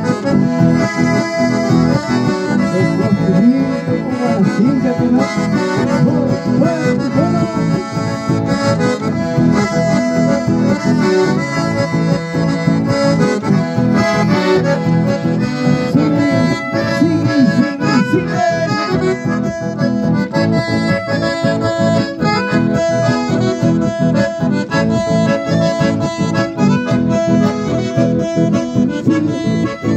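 Live folk dance music led by two button accordions, with an acoustic guitar strumming along. It is played through microphones and a PA loudspeaker and runs continuously at a steady level.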